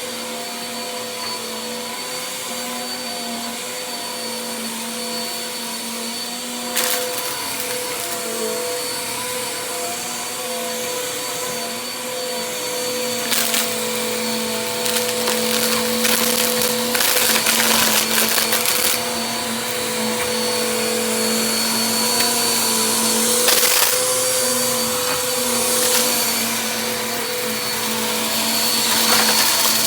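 Vacuum cleaner running steadily, a motor hum with a high whine over the rush of air, with short crackling bursts now and then and louder stretches in the second half.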